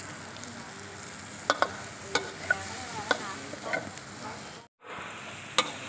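Oil sizzling in an aluminium wok as a metal spatula stirs fried shallots and cayenne pepper, with several sharp clinks and scrapes of the spatula against the wok. The sound cuts out for a moment about three-quarters of the way through.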